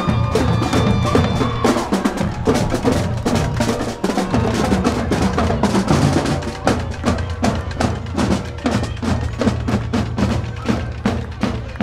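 Marching drums playing a fast cadence of snare and bass drum strokes.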